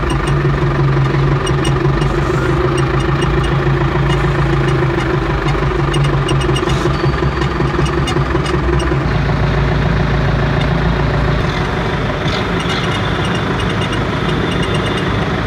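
Tractor engines running steadily, a low drone whose note shifts about nine seconds in.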